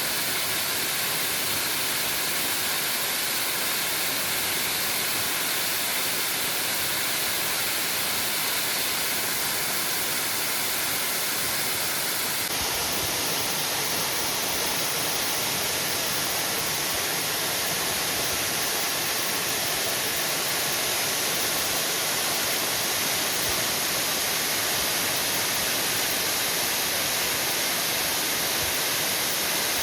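Waterfall rushing steadily, a continuous roar of falling water with no breaks; its tone shifts slightly about twelve seconds in.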